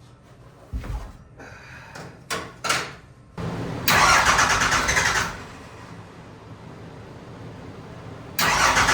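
A few clicks, then a Cummins diesel engine cranking on the starter and catching, stuttering into a rough run with its injector lines cracked open to bleed air from a dry fuel system. It surges loud again near the end.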